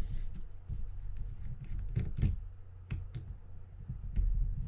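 Scattered light clicks and taps of a small screwdriver and metal screws as the screws are undone on a Shimano Curado DC baitcasting reel, over a low steady hum.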